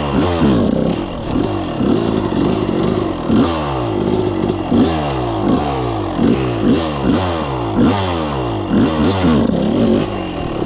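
2020 Yamaha YFZ450R SE quad's single-cylinder four-stroke engine through a full FMF exhaust, revving up and dropping back again and again, one to two times a second, as the throttle is worked on and off.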